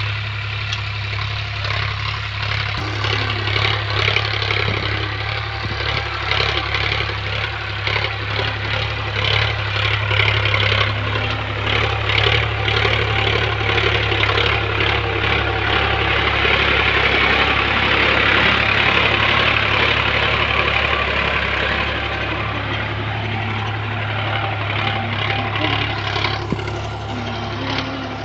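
Farm tractor's diesel engine running steadily under load while pulling a tine cultivator through dry soil, with rattling and clattering from the implement. It grows louder a little past the middle as the tractor comes close.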